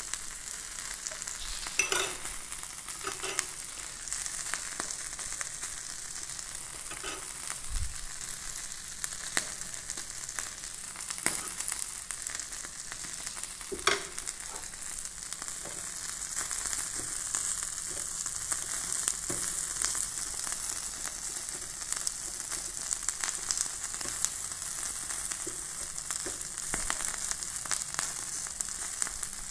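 Butter-basted marinated chicken pieces sizzling on a perforated metal grill plate over a gas flame: a steady crackling hiss, slightly louder in the second half, with a few sharp clicks.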